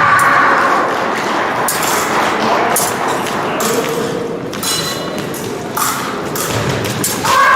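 Épée bout in a large hall: repeated thumps and sharp clicks from fencers' footwork and blade contact, with a short shout at the start and another near the end.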